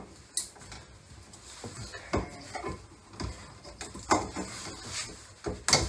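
Hands handling a plastic electrical box and its mounting bracket: rustling, with electrical tape being wrapped around exposed wire, and a scattering of light clicks and knocks, the sharpest about four seconds in and near the end.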